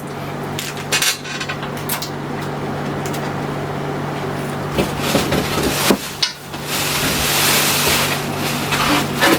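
Hard clinks and knocks from a PC cabinet and its parts being handled, several separate sharp knocks over a steady low hum, with a rustling hiss from about seven to nine seconds in.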